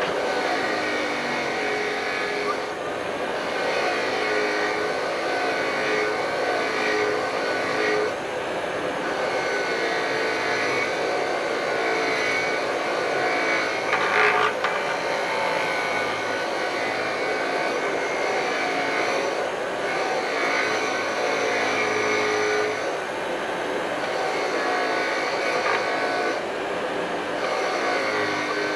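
Cheap benchtop grinder running with its wire wheel brushing carbon off an engine valve: a steady motor whine and wire-brush scrub whose pitch sags and recovers every few seconds as the valve is pressed against the wheel, with one brief sharper scrape about halfway through.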